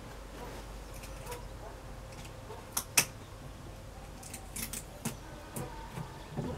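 A few sharp clicks and light handling noises as adhesive tape is pressed and fixed onto newspaper laid over a wooden beehive box; two clicks close together about three seconds in are the loudest.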